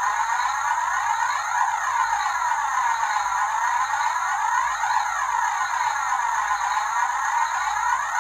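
Steady whirring drone whose tone sweeps slowly up and down in a repeating swoosh about every three seconds.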